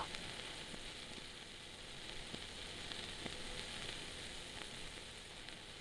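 Faint recording noise: a steady hiss with scattered soft clicks and crackles, and no music.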